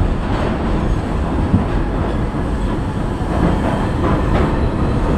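New York City Subway 5 express train running through the tunnel, heard from inside the car: a steady heavy rumble with the wheels clacking over rail joints, as the train nears its next station.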